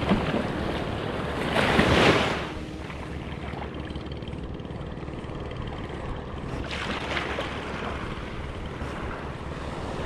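Small sea waves washing in at the shoreline, with wind buffeting the microphone; the wash swells louder about two seconds in, then settles to a steady hiss.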